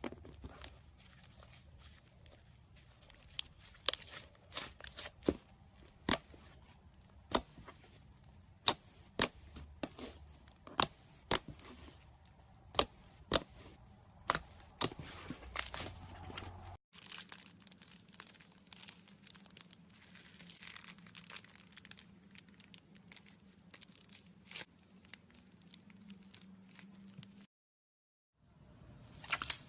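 Slime being handled: squished, stretched and poked, giving irregular sharp clicking pops and crackles. About halfway through, the pops give way to a quieter, finer crackle, and there is a second of silence near the end.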